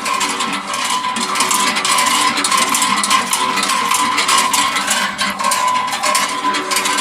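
Small motor and plastic gears of a toy vehicle running steadily: a constant whine with a fast, continuous clicking rattle.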